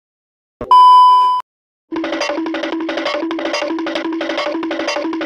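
A short, loud censor-style bleep, one steady high tone lasting under a second. About two seconds in, a music loop starts, with evenly repeating notes at about three a second.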